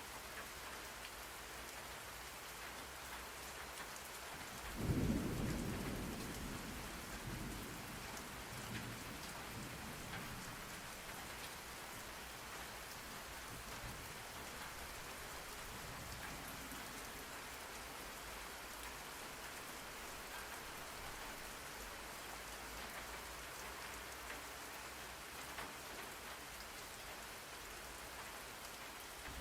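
Steady rain falling, with one clap of thunder about five seconds in that rumbles away over the next few seconds.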